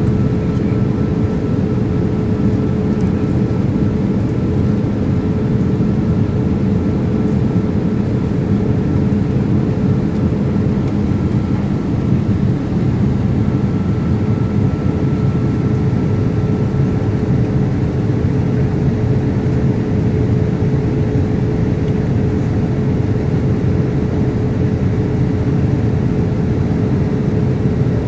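Steady cabin noise inside a Boeing 787 Dreamliner airliner: a low, even rush with a steady hum through it. A fainter, higher tone fades out a little past halfway.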